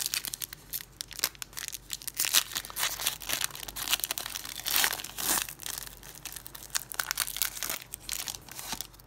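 Foil wrapper of a 2015 Panini Prizm football card pack being torn open and crinkled by hand, an irregular crackling that swells loudest about two and five seconds in.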